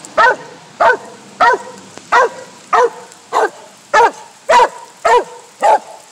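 Original mountain cur barking up a tree at a squirrel in a steady, even series of barks, about ten of them, each dropping in pitch: the tree bark of a squirrel dog that has a squirrel treed.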